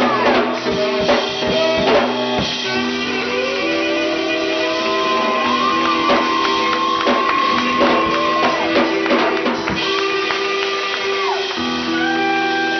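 Band music with drums and a melody of held, sliding notes over a steady harmony. There are sharp percussive hits in the first couple of seconds.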